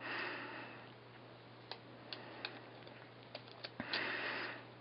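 Thin protective plastic film being peeled off a temporary tattoo by hand: soft rustles near the start and near the end, with several small crackling ticks in between.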